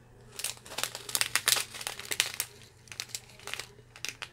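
Small clear plastic bags of resin diamond-painting drills crinkling as they are handled and turned over: a run of irregular crackles, busiest in the first two and a half seconds and sparser after.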